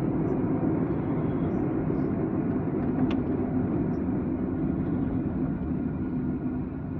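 Steady low road and engine rumble inside a moving car's cabin, with one short click about three seconds in.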